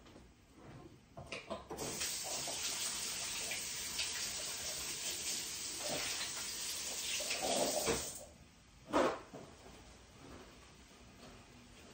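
Kitchen sink tap running for about six seconds and then shut off, with a few small clatters just before it starts and a single knock about a second after it stops.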